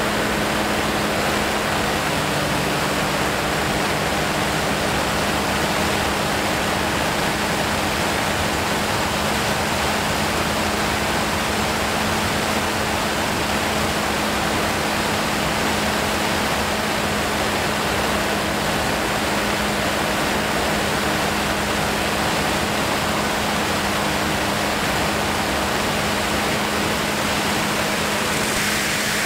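Steady rushing of air past an aircraft in flight, a loud even hiss with a faint steady low hum underneath.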